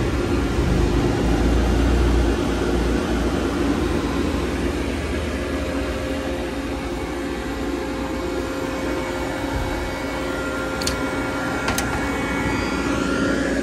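Steady hum and fan whir of a powered-up Doosan Puma TT1800SY CNC turning center's electrical cabinet and its panel cooling unit. Two light clicks about a second apart near the end.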